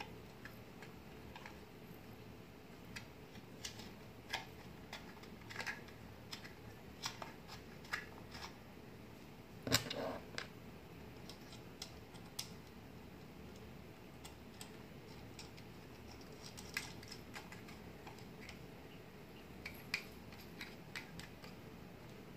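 Scattered light clicks and taps of a plastic OtterBox phone-holster belt clip being handled while a small part is worked into its hinge, with one louder knock about ten seconds in.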